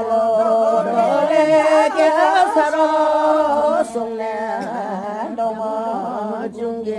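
Background music: a Sherdukpen folk song, a voice singing a slow, ornamented melody with long held notes over a steady accompaniment, a little softer after about four seconds.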